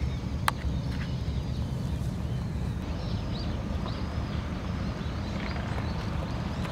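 Outdoor shoreline ambience: a steady low rumble, with one sharp click about half a second in and a few faint high bird chirps in the middle.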